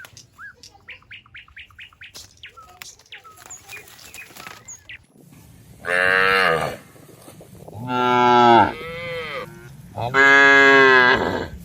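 A cow mooing three times in the second half, each call a long, full low bellow of about a second. Before the moos come faint, quick high chirps.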